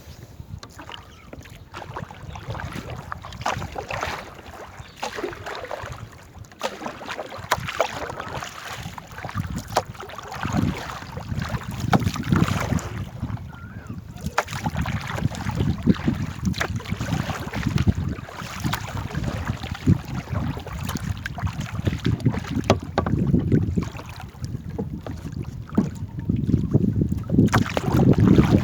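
Paddles splashing and knocking in river water as a small boat is rowed along, with wind buffeting the microphone in a low, uneven rumble.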